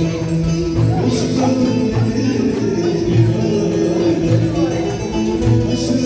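Turkish folk dance music with a steady beat and a low note repeating about once a second.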